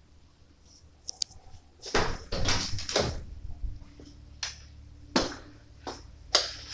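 Irregular knocks and clatters in a small room, the busiest run about two to three seconds in, with a low hum starting about two seconds in.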